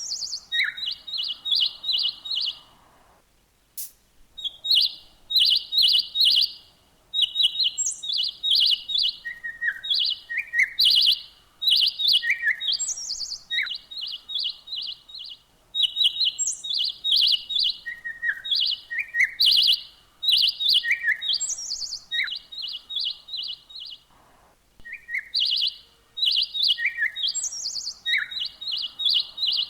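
Small songbirds chirping in quick runs of short high notes, mixed with occasional downward-sliding calls, with brief pauses between bouts.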